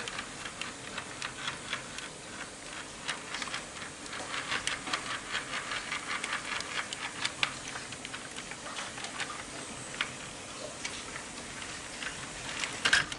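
HO scale model train rolling slowly along the track, its wheels clicking irregularly over the rail joints, busiest in the middle, with a few louder clicks near the end.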